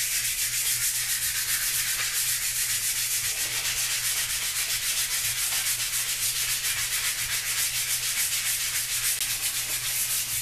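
100-grit sandpaper rubbed by hand over a maple rifle stock in fast, even back-and-forth strokes, a steady scratchy hiss. The wood is being sanded smooth of small blemishes to prepare it for its first coat of stain.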